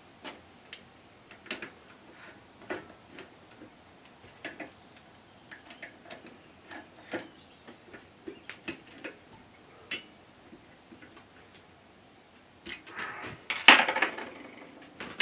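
Scattered small metallic clicks and ticks as a hex key tightens the grub screws on the lathe's handwheel, with a louder burst of handling noise near the end.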